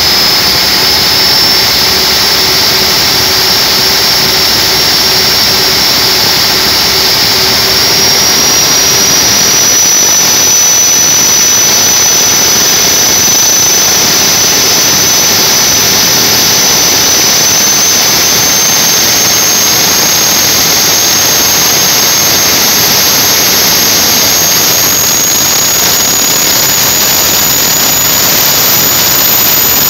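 Large turbocharged diesel engine running loud and steady under rising load, with a high turbocharger whine that climbs slowly in pitch as boost pressure builds.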